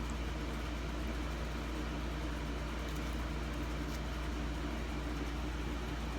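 Steady low hum with a few faint, brief clicks.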